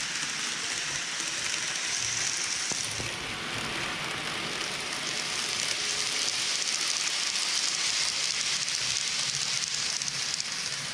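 N gauge model trains running on the track: a steady rushing hiss of small wheels on rail. It grows louder about halfway through as two trains pass close on a curve, then eases near the end.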